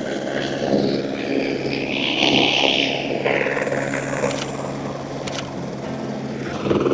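Helicopter coming in to land: a steady rotor and engine drone with a rushing hiss that swells about two seconds in and then eases.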